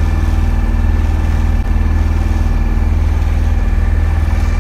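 Tanzer 26 sailboat's auxiliary motor running steadily under way, a loud low drone with a fast, even pulse.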